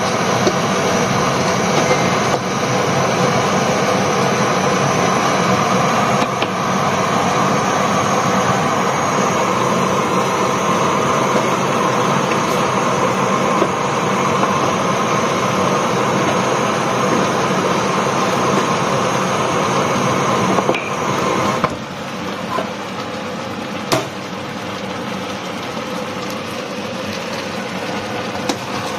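Steady rushing noise at a gas stovetop, with a few light knocks. It drops to a lower level about three-quarters of the way through.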